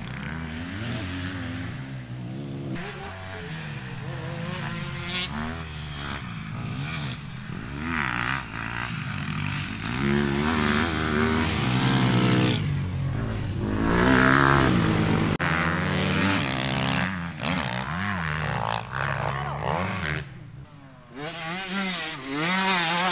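Dirt bikes running on a motocross track, several engines at once revving up and easing off over and over, loudest around the middle as a bike comes close.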